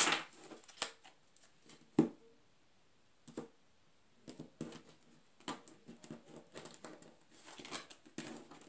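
Tarot cards being handled and dealt onto a table: a few sharp taps, the loudest about two seconds in, then soft slides and pats of card stock as the cards are laid down one by one.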